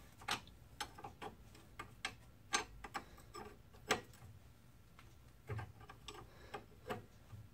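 Light, irregular metallic clicks and clinks of a wrench being worked on the castle nut of a newly fitted tie rod end, about one every half second to a second.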